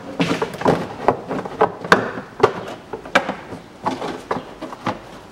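A plastic wheel-arch liner being pushed and worked into place in a car's front wheel well by hand: irregular sharp plastic knocks and clicks, with rustling scrapes between them.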